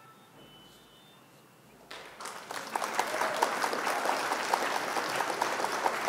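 Recorded applause, a crowd clapping, that starts about two seconds in after near quiet, swells quickly and holds steady.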